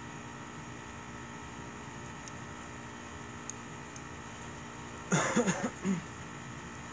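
Wood fire burning in a fire pit: a steady low hiss with a couple of faint pops. About five seconds in comes a brief loud run of four or five short pitched sounds.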